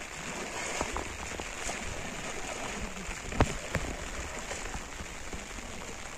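Steady patter of water, like light rain or lapping on the lake, with a few sharp knocks, the loudest about three and a half seconds in.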